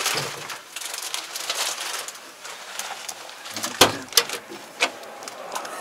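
Rustling and handling noise as someone moves about in a John Deere tractor cab and grips the handrail by the door, with three sharp knocks in the second half, the first the loudest.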